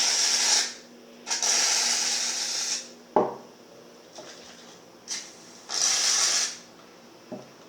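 Aerosol can of shaving foam being sprayed in three hissing bursts, the second the longest, with a short knock a little after three seconds in.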